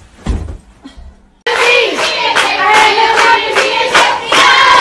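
A short dull thump near the start, then a group clapping in a steady rhythm, about three to four claps a second, with several voices singing and shouting along.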